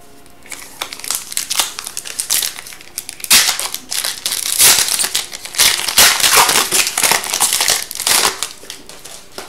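Foil wrapper of an Upper Deck Series 2 hockey card pack being torn open and crinkled as the cards are pulled out. It is a dense, crackly rustle that grows much louder about three seconds in and dies down near the end.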